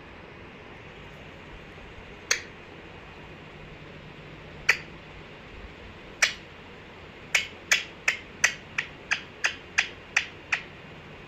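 Sharp clicks or snaps: three spaced a couple of seconds apart, then a quick, even run of about ten at roughly three a second.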